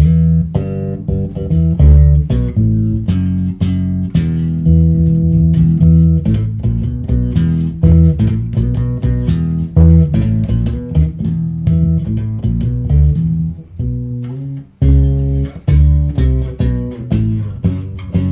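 Homemade five-string electric bass played through an amp's distortion channel: a run of plucked notes with a distorted tone, with a brief break about fourteen seconds in.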